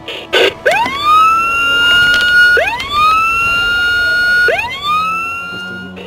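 Electronic sound effect from the Castle Grayskull 200X toy playset's built-in speaker, set off by pressing the gold skull button: a click, then a siren-like whoop that sweeps up quickly and holds, three times over.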